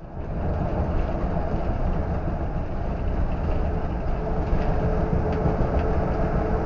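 Steady road noise of a vehicle driving along a concrete highway, tyres and engine heard from inside the cab, with a faint steady hum joining about halfway through.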